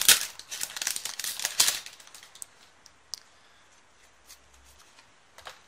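Foil trading-card booster wrapper crinkling as the stack of cards is pulled out of it, lasting under two seconds. Then quiet, with a few faint single clicks as the cards are handled.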